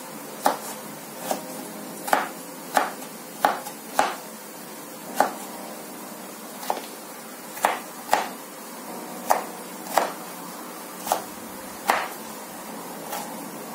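Kitchen knife dicing red bell pepper on a wooden cutting board: the blade knocks on the board about fifteen times, roughly once a second and unevenly spaced.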